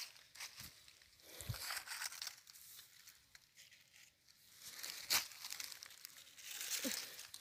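Dry leaves rustling and crackling irregularly as they are pressed and handled, with a few sharp snaps, the loudest about five seconds in.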